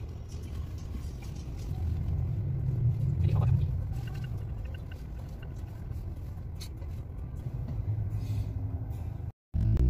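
Road noise inside a moving car: a steady low rumble of engine and tyres, which cuts out to silence for a moment near the end.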